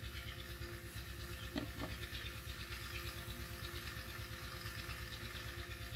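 Quiet background: a low, steady rumble with a faint hum, and a couple of faint soft knocks about a second and a half in.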